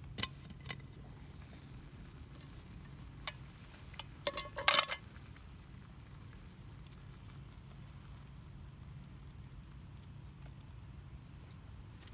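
Metal cookware and utensils clinking in camp cooking: a few sharp, ringing clinks, then a quick loud clatter of several about four seconds in.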